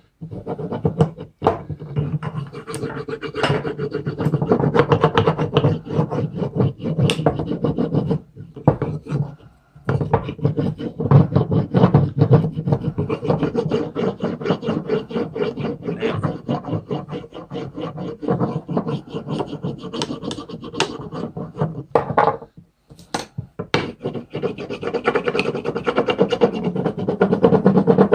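A hatchet's wooden handle being burnished by brisk back-and-forth rubbing with another piece of wood, wood on wood in rapid scratchy strokes, with two short breaks. The rubbing presses down the grain and brings up a shine without oil or wax.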